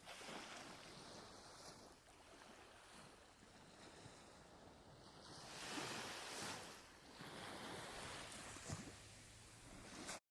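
Faint sea waves washing in and out, with a bigger surge of surf about five and a half seconds in. The sound cuts off abruptly just before the end.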